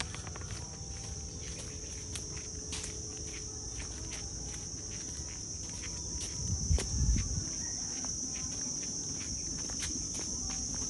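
Insects chirping in a steady, unbroken high-pitched trill, with light footsteps on a path. A brief low rumble about six seconds in is the loudest moment.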